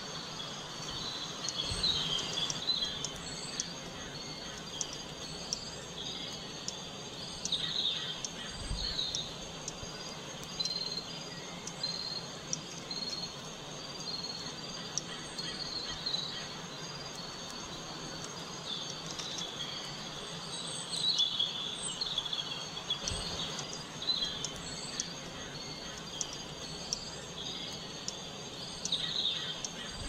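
European starling singing: bursts of varied warbling and chattering every few seconds, over an even, fast-repeating high ticking.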